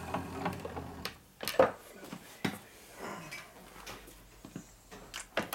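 Scattered metal clinks and knocks of a machined part and tools being handled, the loudest about a second and a half in. A low machine hum dies away about a second in.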